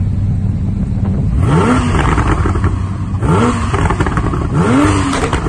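Porsche 991 Turbo's twin-turbo flat-six, running a big-turbo kit, idling on a dyno and revved in three quick throttle blips, each a rising sweep in pitch followed by sharp crackles from the exhaust.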